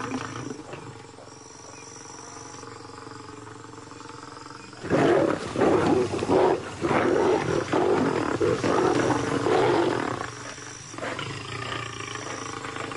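Young male lions growling at one another in a threatening standoff: quieter at first, then a run of loud, rough growls from about five seconds in that lasts about five seconds before dying down.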